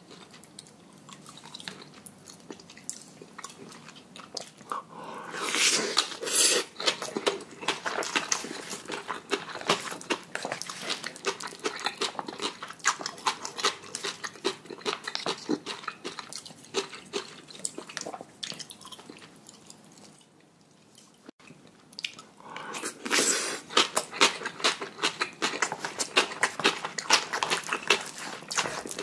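A person eating spicy black-bean noodles (bul-jajang) close to the microphone: steady wet chewing with small smacking clicks, and two louder slurps of noodles about five and twenty-two seconds in.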